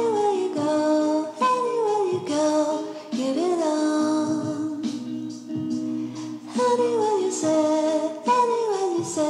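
Background music with a singing voice.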